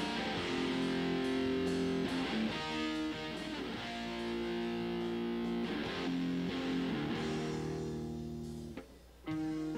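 Electric guitar track playing back through a software compressor set to an electric-guitar preset (ratio 7:1, knee 4, attack 3.5 ms, release 460 ms): held, ringing chords that change every second or so, with its threshold being pulled down as it plays. The guitar briefly drops out about nine seconds in.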